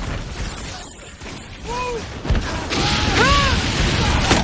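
Battle-scene sound effects: crashing impacts and rumble under fire, with short wordless shouts about two and three seconds in.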